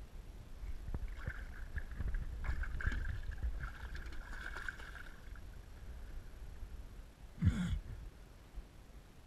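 Hooked redfish splashing and thrashing at the surface beside the boat as it is grabbed by hand, with steady wind rumble on the microphone. Near the end comes a single short, loud thump.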